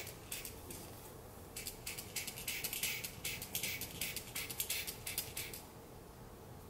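Dr. Fill-in hair-fiber pump applicator squeezed again and again, giving a run of quick, faint, hissy puffs. A few come just after the start, then a steady run from about a second and a half in stops about a second before the end.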